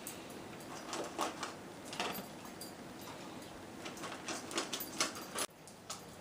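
Dogs eating from food bowls: irregular clicks, crunches and scrapes. The background noise drops off abruptly near the end.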